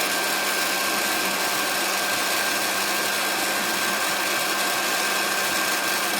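Electric heat gun running steadily, its fan blowing with a constant whine and hum while it heats old paint to soften it for stripping.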